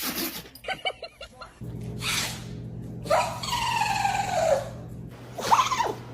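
Dogs sneezing and snorting: several short, sharp sneezes with a few quick snorting clicks. About three seconds in, a long pitched whine falls slowly in pitch.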